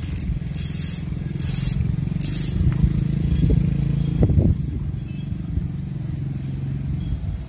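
A motor running steadily in the background. Over it come three short high whirring bursts in the first two and a half seconds: a baitcasting reel being cranked to wind in the line.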